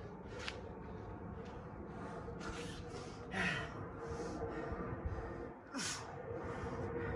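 A man breathing hard in a run of heavy breaths after an exercise round of push-ups and dumbbell clean and presses, with stronger exhales about three and a half and six seconds in.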